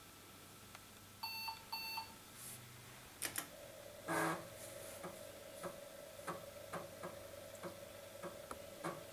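IBM 5140 PC Convertible booting: two short beeps from its speaker about a second in. A few seconds in, its 3.5-inch floppy drive starts up with a steady hum and a run of quick ticks from the head stepping as it reads the boot disk.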